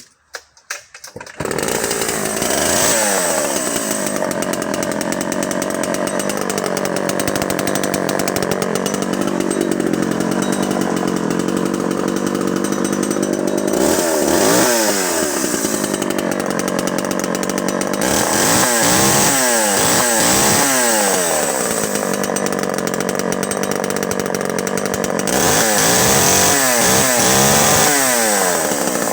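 Homelite XL Automatic vintage two-stroke chainsaw starting on a bit of choke: it catches about a second in and runs on. It is revved in short blips several times from the middle on, its pitch sweeping up and back down.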